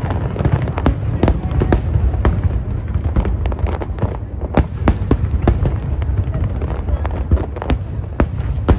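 Fireworks display: aerial shells bursting in quick succession, sharp cracks and bangs over a continuous low rumble, the loudest about halfway through and again near the end.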